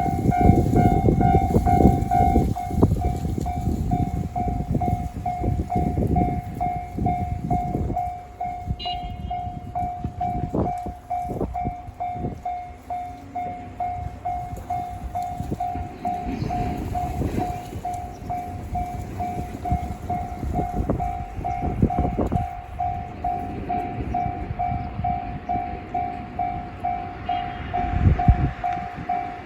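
Japanese railway level-crossing warning bell ringing in a steady, evenly repeating electronic tone, while a train runs over the crossing with rumble and wheel clatter over the rail joints. The train noise is loudest at the start, eases after about eight seconds and picks up again later.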